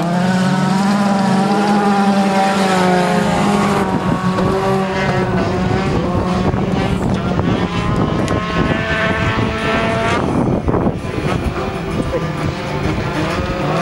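Several folkrace cars racing on a dirt track, their engines revving hard, pitch rising and falling as the drivers accelerate and lift, over a steady low hum.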